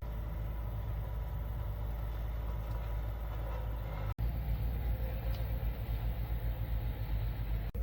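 Car driving, a steady low rumble of engine and road noise that briefly cuts out twice.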